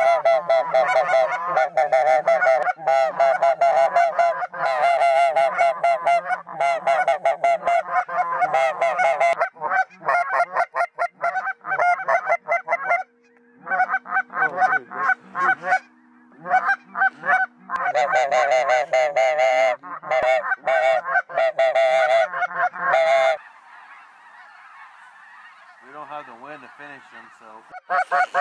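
A large flock of geese calling overhead, many honks overlapping in a dense, continuous chorus. Near the end the calling drops away for a few seconds to a faint hiss and a few distant calls, then comes back loud.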